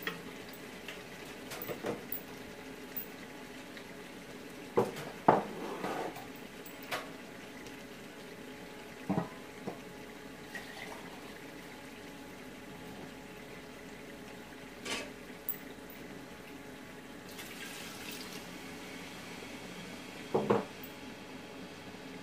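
Mutton stock (yakhni) being poured into a large aluminium cooking pot of meat gravy, with liquid splashing and a few sharp knocks of cookware.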